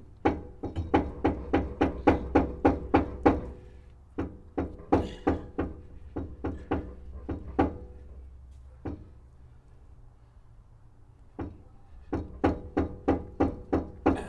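Rapid hammer blows on a stuck metal part of a large grinder, about four strikes a second in three runs with short pauses, each blow leaving a brief metallic ring; the part is being driven loose.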